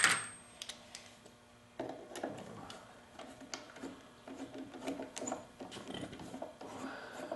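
Light, irregular mechanical clicking and ticking of a hand tool working the small engine's screws loose, starting about two seconds in after a brief pause.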